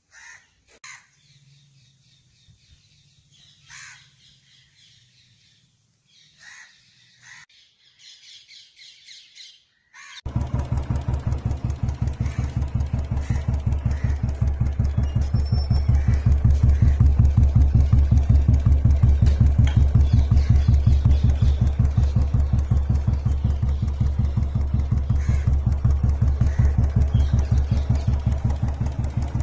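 Faint bird chirps at first; then, about a third of the way in, a Royal Enfield motorcycle fitted with a Dolphin aftermarket silencer comes in suddenly, idling with a loud, steady, even beat of deep exhaust pulses.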